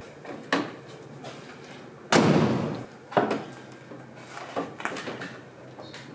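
Several sharp metal clunks, the loudest a clatter about two seconds in: the Land Rover Series 3's bulkhead ventilation flaps under the windscreen being swung open.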